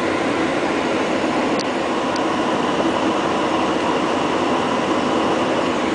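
Steady rushing flight-deck noise inside a Boeing 757 cockpit on final approach: an even hiss of air and airframe noise with no change in level.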